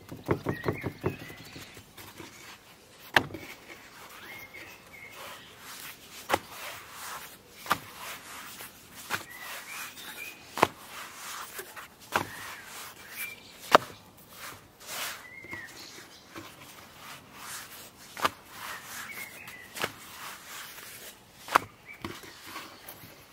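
Pizza dough being pressed and stretched by hand and slapped down on a wooden board: a quick patter of finger taps about a second in, then single sharp slaps every second or two.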